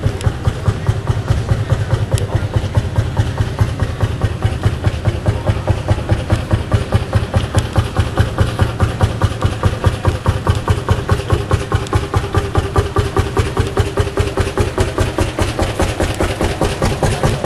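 Old tractor engine idling close by, with an even pulsing beat of several pulses a second that holds steady throughout.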